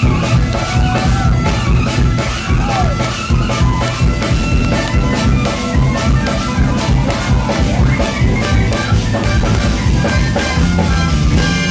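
Live jazz-fusion band playing loudly, with drum kit, electric guitars, bass and trumpet and saxophone, over a steady driving drum beat. The sound is rough from being heard right beside the stage.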